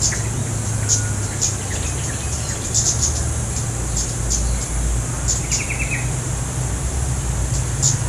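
Female flowerpecker (cit keres) giving short, sharp, high call notes at irregular intervals, with a brief stuttering trill about five seconds in. A steady low rumble runs underneath.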